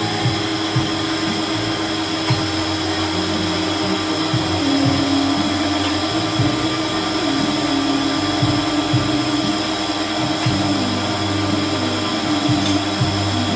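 A small motor running steadily with a continuous whir.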